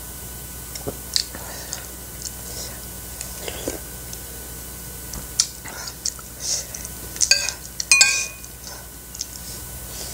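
Metal spoon clinking and scraping against a ceramic soup bowl and plate, with chewing between. Several sharp clinks; the loudest come about three-quarters of the way through and ring briefly.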